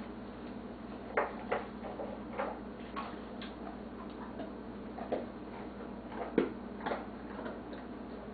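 A dog crunching hard milk-bone style biscuit treats: short, sharp, irregular cracks, about seven over several seconds.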